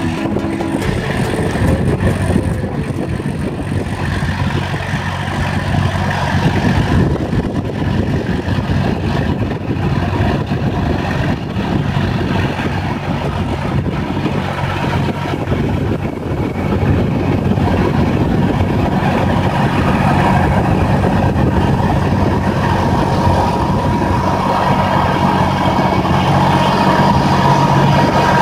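Fendt 211 tractor running steadily under load while driving a 4 m Alpego rotary power harrow through tilled soil. It grows louder from a little past halfway as the tractor comes close, and near the end a steady whine rises above the engine.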